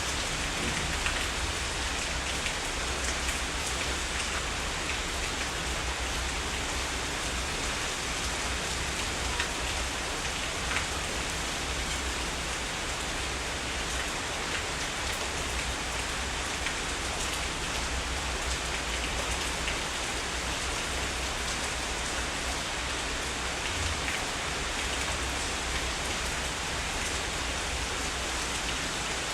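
Heavy rain falling steadily, a dense even hiss with scattered individual drops and a low rumble underneath.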